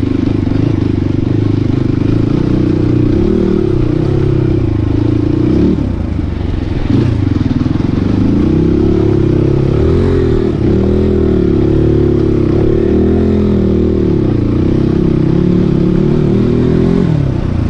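Crossfire 250 cc dirt bike engine heard from on board, revving up and down as it is throttled along a rough off-road trail. The throttle eases off briefly about six seconds in, then the revs rise and fall again and again.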